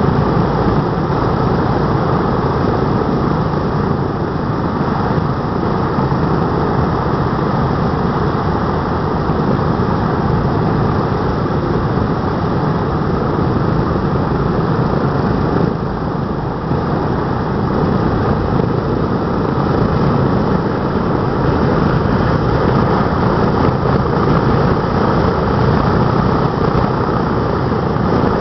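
Wright R-1820 Cyclone nine-cylinder radial engines of a B-17 Flying Fortress running steadily at idle after startup, with a brief dip in level about halfway.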